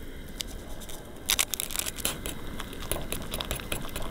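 A fork clicking and scraping in a steel saucepan as a block of instant noodles is broken up and stirred in water, with sharp crackles from about a second in.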